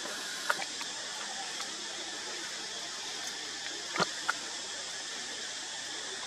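Steady high-pitched hiss of outdoor background noise, with a few short sharp clicks: one about half a second in and two close together about four seconds in.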